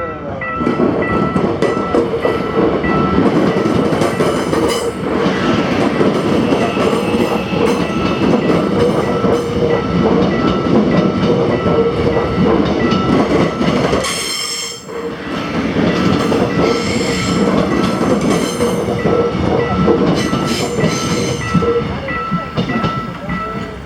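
Gyeongui–Jungang Line electric train passing over a level crossing, wheels rumbling and clacking on the rails, with a short dip about 14 seconds in. The crossing's warning bell dings steadily throughout.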